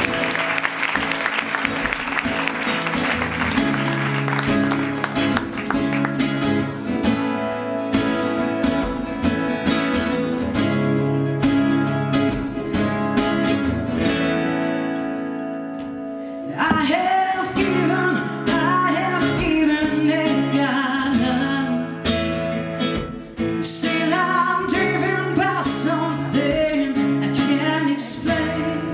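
Live solo acoustic guitar played alone at first; a woman's singing voice comes in a little over halfway through and carries on over the guitar.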